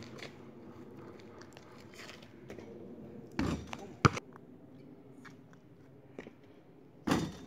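A basketball shot: a dull thud as the ball hits the hoop about three and a half seconds in, then a sharp bounce of the ball on the asphalt street half a second later. Another dull thud comes near the end.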